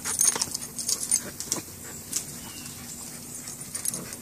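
Two dogs tugging on a rope toy hung from a tree branch: scuffling and rustling, with many short sharp clicks.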